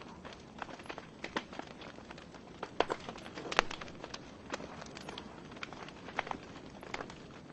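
Wood logs burning in a fireplace, crackling with irregular sharp pops over a steady hiss of the flames; the loudest pops come about three and three and a half seconds in.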